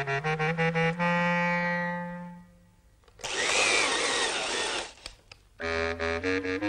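Bouncy staccato music ends on a held note that fades away; then an electric drill runs for under two seconds, turning a chicken on a spit rod. A couple of faint clicks follow before the music starts again.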